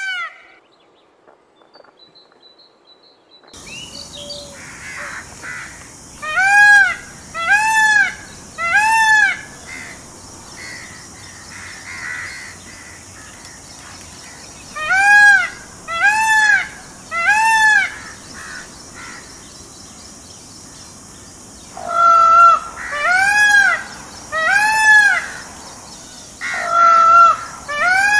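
Indian peafowl (peacock) calling: loud, arched wailing calls in groups, three about six seconds in, three more about fifteen seconds in, then a longer run near the end.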